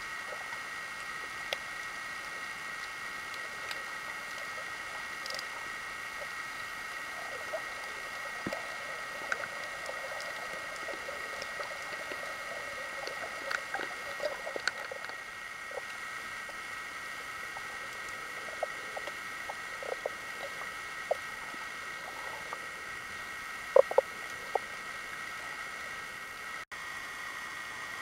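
Underwater ambience picked up by a camera in a waterproof housing: a steady hiss with scattered small clicks and pops, including a couple of louder pops near the end.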